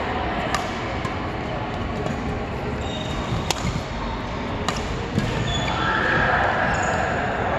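Badminton rally: a few sharp cracks of rackets hitting the shuttlecock, the clearest about three and a half and nearly five seconds in, over the steady noise of a large sports hall.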